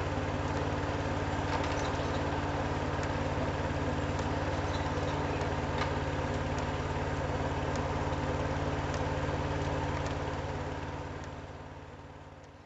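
Engine idling steadily with an even hum, fading out over the last couple of seconds.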